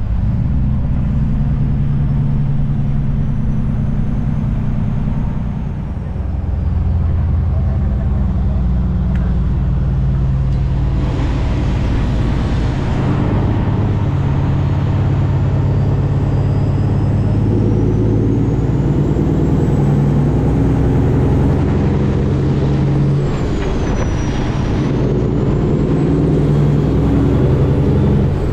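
Kenworth W900 semi truck's diesel engine running steadily at highway speed, with road and wind noise. Twice, about eleven seconds in and again near twenty-three seconds, a louder rushing noise swells for a couple of seconds.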